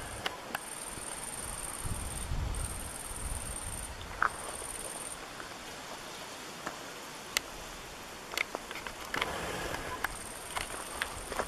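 Insects chirring outdoors, a high, steady buzz that comes in phrases of one to two seconds, stops for a few seconds, and starts again near the end. Scattered short clicks and ticks sound over it.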